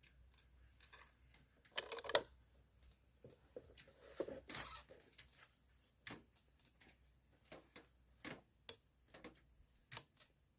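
Scattered faint clicks, knocks and short rustles of handling noise, the sharpest a pair of clicks about two seconds in and a brief rustle near the middle.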